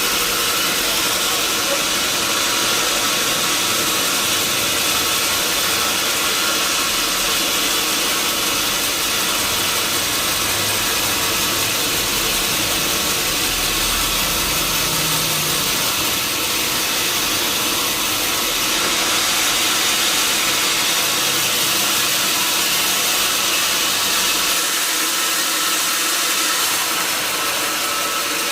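Sawmill saw machinery running steadily, a constant, even mechanical noise heavy in the high range.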